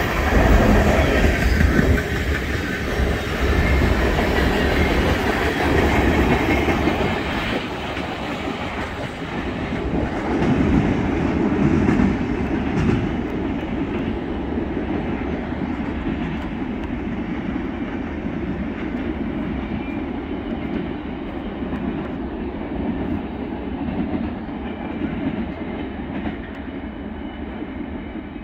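Empty tank cars of a freight oil train rolling past on the rails. The sound is loudest at first, then loses its high end about halfway through and fades as the train moves away.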